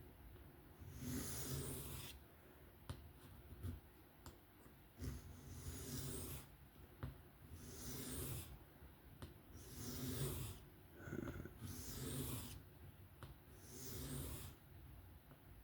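A 154CM steel knife blade being drawn across a whetstone in freehand sharpening strokes: a hissing scrape about every one and a half to two seconds, with small clicks between strokes.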